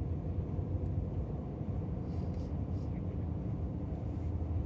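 Steady low road and engine rumble heard inside a car's cabin at highway speed.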